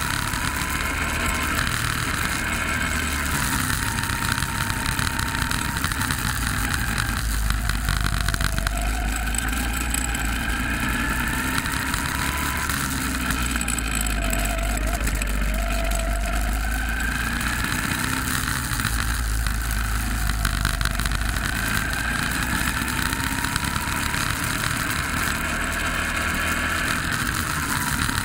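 Go-kart engine running hard around a lap, its pitch climbing slowly and dropping back again and again every few seconds as the kart accelerates and brakes.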